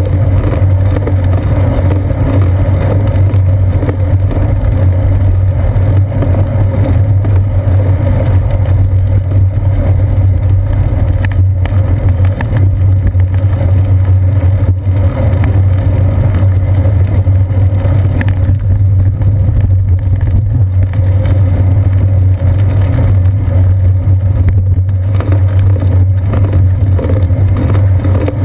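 Steady low rumble of wind and road vibration picked up by a GoPro Hero 2 mounted on a bicycle's seat post as the bike rides along wet pavement.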